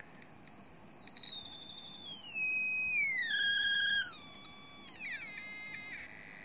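Passive buzzer driven by an Arduino, sounding a continuous electronic tone whose pitch is set by a potentiometer. It starts as a high whine and glides down in several steps to a much lower buzz as the potentiometer is turned down.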